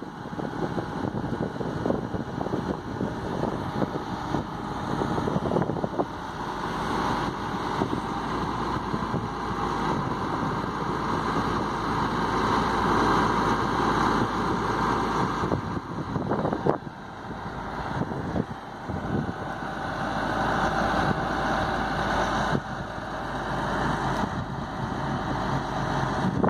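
Truck-mounted National 600B boom crane with its engine running steadily while the boom is worked. A higher whine swells about a quarter of the way in, eases off, and comes up again near the end.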